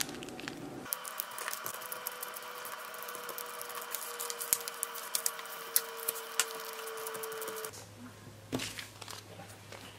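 Clear plastic contact paper crackling and rustling as hands press and smooth it down over flowers: many small sharp crackles over a steady background hum.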